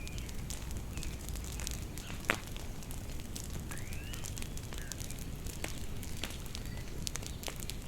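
Bonfire crackling with scattered sharp pops, the loudest about two seconds in. Small birds chirp now and then, with one longer arching call about four seconds in.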